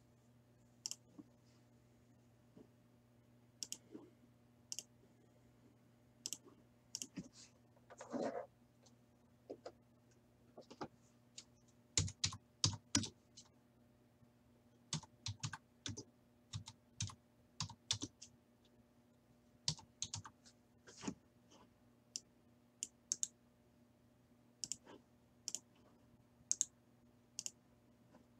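Faint, scattered typing on a computer keyboard and mouse clicks, some single and some in quick runs, over a low steady hum.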